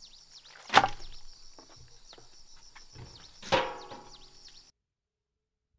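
A metal tray clanks twice on a wooden table, about a second in and again after three and a half seconds, each clank ringing briefly. Birds chirp over it, and the sound cuts off near the end.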